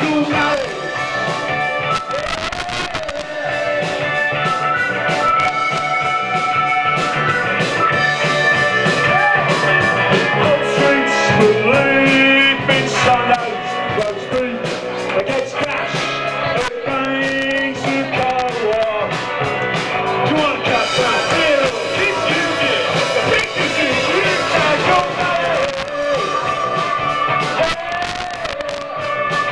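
Live rock band playing an upbeat song, with a man singing lead over electric guitar, bass guitar, drums and a Nord Electro 3 keyboard.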